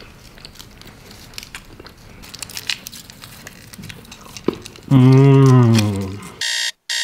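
Foil wrappers crinkling faintly as chocolate candy-coal pieces are unwrapped by hand. About five seconds in a low voice holds one drawn-out sound for about a second, its pitch rising then falling, and near the end an electronic alarm clock starts beeping in even pulses.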